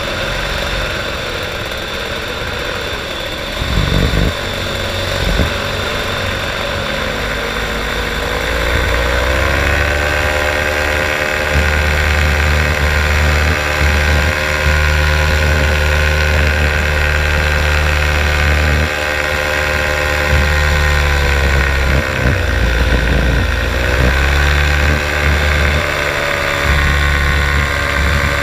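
Powered paraglider's engine and propeller running through take-off and climb-out. The engine note rises as the throttle opens about a third of the way in, then holds steady at climb power with wind rushing over the microphone. The note dips briefly and comes back up about three-quarters of the way through.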